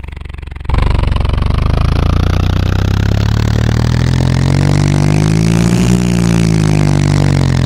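Cartoon monster truck engine sound effect: a low rumble that jumps to a loud engine running about a second in, its pitch climbing to a peak around six seconds in and then easing down as the truck drives off.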